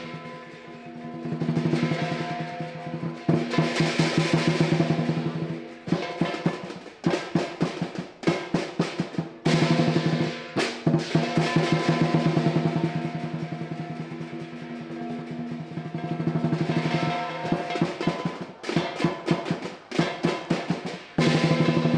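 Southern lion dance percussion: a lion drum with ringing cymbals and gong. Drum rolls swell in loudness, broken by passages of fast, separate beats, with the cymbals ringing under it all.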